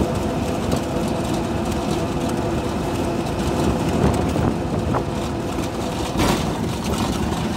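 Steady engine and road noise of a moving road vehicle, heard from on board as it travels along a highway, with a brief louder gust of noise about six seconds in.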